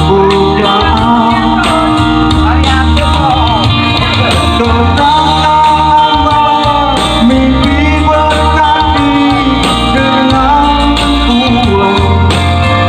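A woman singing a wavering, ornamented melody over a steady instrumental accompaniment with a strong bass.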